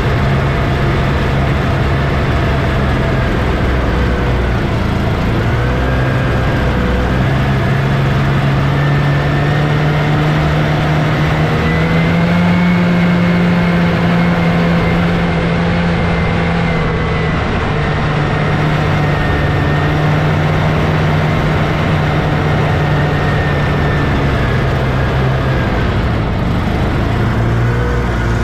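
1979 Scorpion Whip snowmobile's Cuyuna 440 two-stroke engine running steadily under way. The engine note climbs a little in pitch about halfway through, then eases back down, following the throttle.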